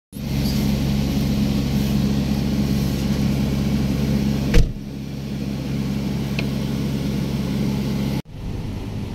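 A car engine running with a steady hum. There is a sharp click about halfway through, and the sound cuts off abruptly near the end.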